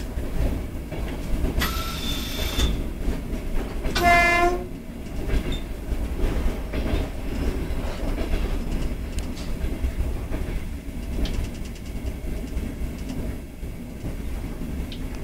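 ED4M electric multiple unit running along the track, heard from inside its cab: a steady low rumble of the running gear. About two seconds in, a thin high tone sounds for about a second, and about four seconds in comes a short, loud horn blast. Later there are faint clicks of the wheels over the rails.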